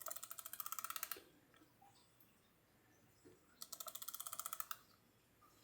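Socket ratchet wrench being cranked to turn a bolt, in two quick runs of rapid even clicks, each about a second long, with a pause between.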